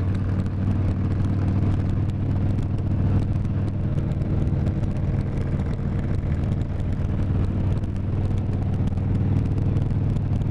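Harley-Davidson touring bagger's V-twin engine running steadily at highway cruising speed, heard from the rider's seat with wind rushing past the microphone.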